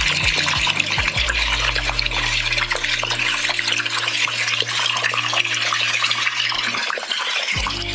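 Water running steadily from a tap into a bathtub as it fills.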